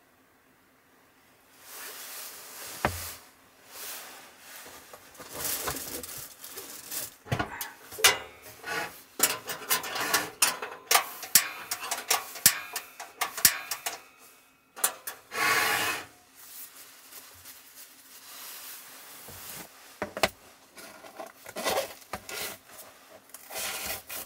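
Handling noises at a wooden table: a green case is worked with a quick run of sharp clicks and knocks in the middle, then paper rustles and is pulled from a holder near the end.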